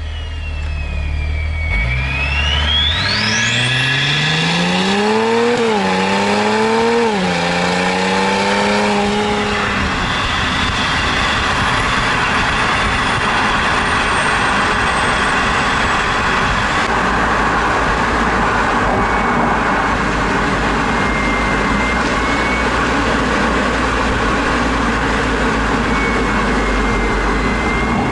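Audi 3.0 TDI BiTurbo V6 diesel with a straight-piped exhaust accelerating hard from a standstill. A high turbo whistle falls and then rises sharply at the launch, and the engine note climbs through the gears, dropping back at three shifts. About ten seconds in it settles into cruising: a steady low exhaust drone under road and wind noise.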